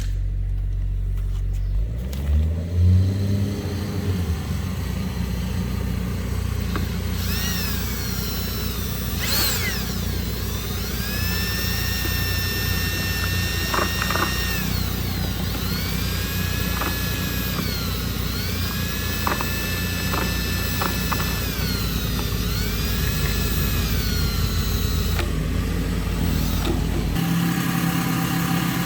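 An engine, as on construction machinery, revs up about two seconds in and keeps running. A high whine rises, holds and falls again several times, with a few short clicks in between, and the low rumble drops away near the end.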